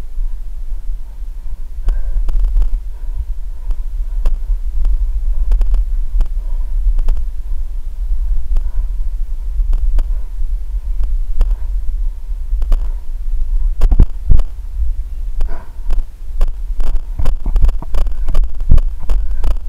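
Steady low rumble and thumping of a body-worn camera being jostled, as the runner climbs over a wooden obstacle. A couple of heavy thumps come partway through, and near the end a regular thudding of running footsteps sets in at about three a second.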